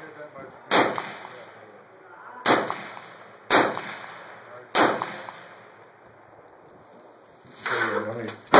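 Suppressed .22 AR-15 rifle fired in single shots: four sharp cracks in the first five seconds, spaced one to two seconds apart, each trailing off in a short echo, and one more at the very end.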